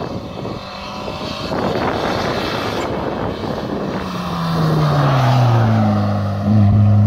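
Competition car's engine running hard as the car drives up the road and passes close by. It grows louder, its pitch drops about four to five seconds in, and it stays loud to the end.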